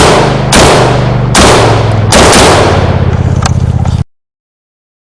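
Machine gun firing on full automatic in long, rapid bursts, about ten shots a second, loud and distorted on the microphone. It cuts off suddenly about four seconds in.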